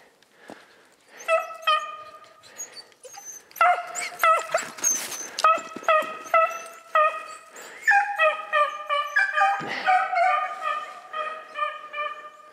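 A pack of beagles baying on a hare's track: several dogs give long drawn-out notes that overlap, starting about a second in and getting louder and denser from about three and a half seconds in.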